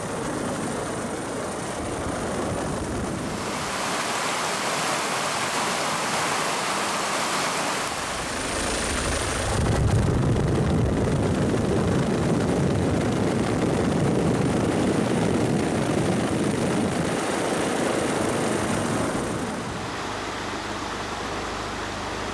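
Steady rushing noise of a helicopter heard from on board. It gets louder and deeper about ten seconds in, and drops back near the end.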